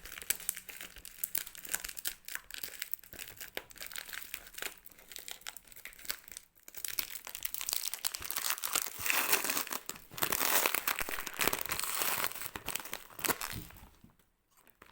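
Plastic shipping packaging crinkling and tearing as it is worked open by hand, with a rapid crackle throughout that grows louder and denser for a few seconds in the second half, then stops briefly near the end.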